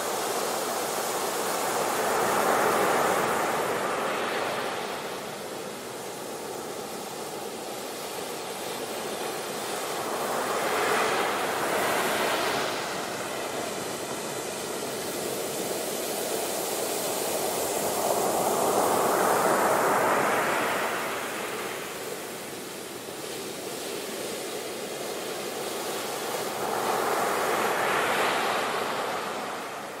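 Ocean surf: waves breaking and washing onto a beach, a steady rush that swells four times, about every eight seconds, and eases back between.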